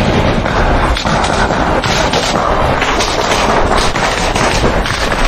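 Close-range small-arms gunfire: loud, with many shots in quick, irregular succession that run together.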